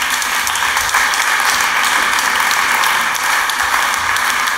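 Audience applauding steadily at the end of a stage pitch.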